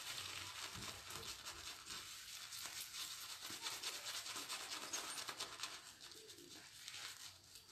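Shaving brush scrubbing lather onto a bearded face: a fast, fine scratchy rustle of wet bristles working through the foam, fading near the end.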